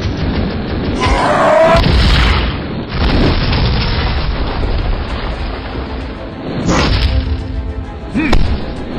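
Animated fight-scene soundtrack: deep booms and impacts over music, with a loud burst about a second in and a sharp hit near the end.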